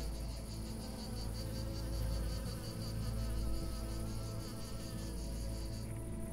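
Cricket chirping in a fast, even trill of about ten pulses a second, stopping shortly before the end.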